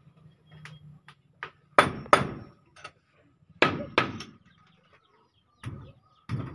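Sharp knocks on a wooden door frame as a new door is fitted into it: six loud strikes, mostly in quick pairs, with fainter taps between them.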